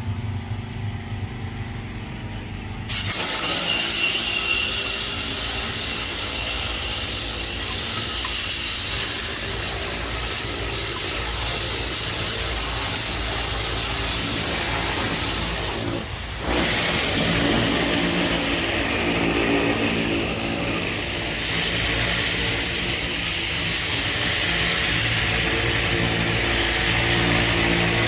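Hot-water pressure washer at work: its engine runs steadily, and about three seconds in the high-pressure spray starts with a loud, even hiss. The spray cuts out for a moment about halfway through, then starts again.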